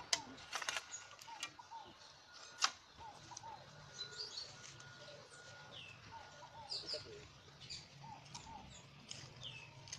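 Birds chirping over and over, short quick calls that sweep down in pitch; a few sharp clicks in the first three seconds, the loudest about two and a half seconds in.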